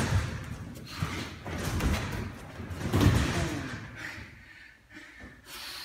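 Judo practice on tatami mats: scattered thuds and shuffles of bodies and bare feet on the mat, with a heavier thump about three seconds in as a partner is thrown.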